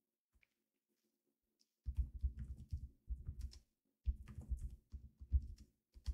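Computer keyboard typing in quick bursts, starting about two seconds in, after a near-silent opening; the keystrokes come through mostly as dull low thuds.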